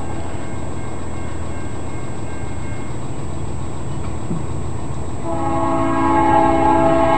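Diesel freight locomotive's air horn starts a long chord about five seconds in, the standard warning blown for a grade crossing ahead. Under it, a low steady rumble.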